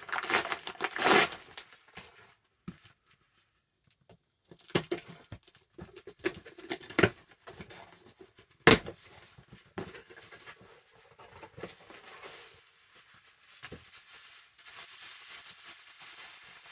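Mail package being torn open and its packaging crinkled and rustled in bursts, with a short pause between them and one sharp click about nine seconds in.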